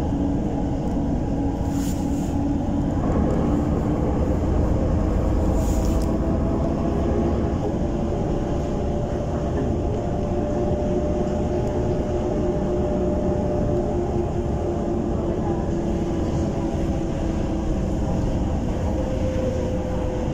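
Solaris Urbino 12 city bus driving, heard from inside the passenger cabin: a steady engine and road rumble with a hum whose pitch rises and falls slowly as the bus changes speed. Two short clicks come in the first few seconds.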